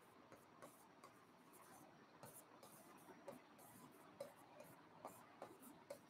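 Faint, irregular taps and scratches of a pen writing on an interactive touchscreen whiteboard, set against near silence.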